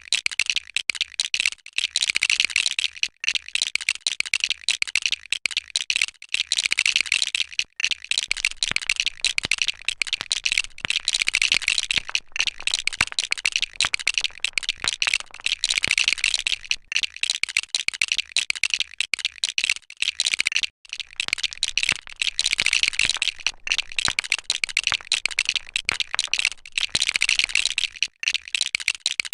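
Loose plastic LEGO bricks clattering and clicking almost without pause as they are picked through and snapped together.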